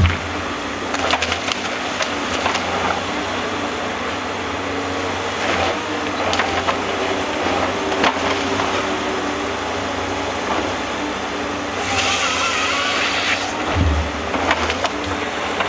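Forestry harvester running under hydraulic load as its head feeds a felled stem, with many sharp cracks of branches and wood splintering. About twelve seconds in, the head's bar saw cuts through the stem for a little over a second, followed by a low thump as the cut log drops.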